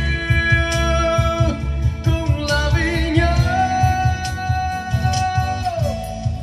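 A man singing into a microphone over backing music with a steady beat and guitar, heard through RCF PA loudspeakers during a sound check. The voice holds a long note in the second half that drops away near the end.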